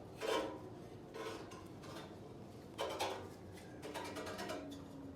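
Metal tools and parts clinking and clattering as they are handled, in about three short bursts with quieter gaps between.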